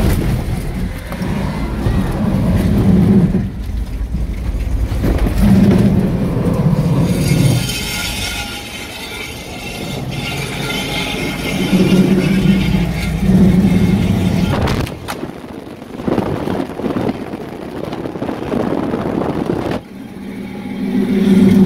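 Work truck's engine heard from inside its cab while racing, surging up and easing off several times over steady road noise.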